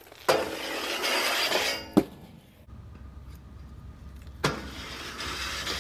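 USD Aeon 60 aggressive inline skates landing on a metal stair handrail with a knock and grinding down it in a loud, even scrape, ending in a sharp landing slap about two seconds in. A second knock past four seconds starts another grind down the rail.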